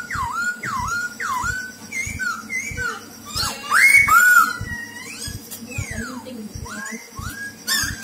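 Caged black-throated laughingthrush singing: a run of clear whistled notes that each drop and then level off, about two a second, followed by more varied whistled phrases that rise and fall.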